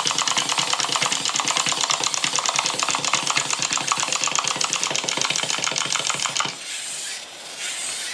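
Wind-up chattering-teeth toy running on a tabletop: its clockwork buzzes with rapid, even clacking, about ten clicks a second, and it runs down and stops about six and a half seconds in.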